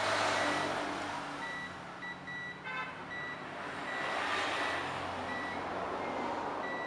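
A multimeter's continuity buzzer chirps in short, broken high beeps as its probes touch a phone circuit board during a check for a short circuit. A hiss swells and fades behind it.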